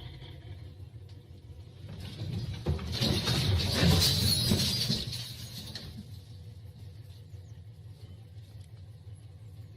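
A vehicle engine running steadily. About two seconds in, a loud, rough, noisy surge builds over it, peaks for a couple of seconds, and fades out by about six seconds in.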